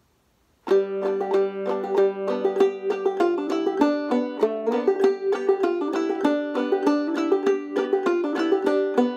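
Open-back Enoch Dobson five-string banjo with an 11-inch rim, goatskin head and nylgut strings, played clawhammer style in standard G tuning (gDGBD). It starts sharply a little under a second in with a brisk run of plucked notes and brushed strums.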